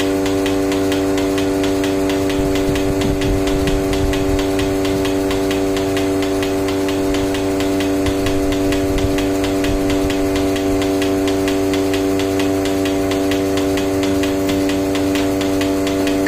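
Portable milking machine running steadily while its teat cups milk a cow: a constant, even hum from the vacuum pump with a fine, regular ticking over it.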